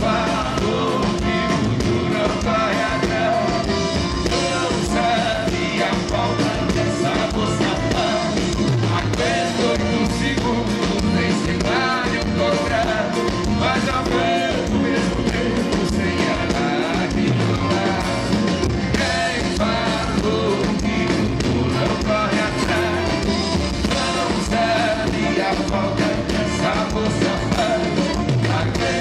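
Live band music from a sertanejo duo's stage performance, playing steadily with a beat and a bending melody line.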